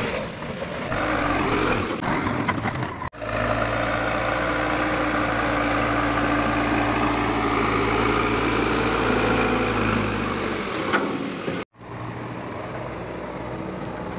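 Diesel engine of a Caterpillar 424E backhoe loader running under load as its front bucket pushes soil. Two sudden cuts break the sound about 3 and 11.5 seconds in, and after the second cut the engine noise is more distant and quieter.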